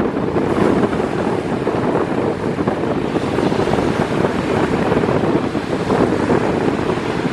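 Strong north wind buffeting the camera's microphone: a loud, steady, rough rumble that flutters without pause.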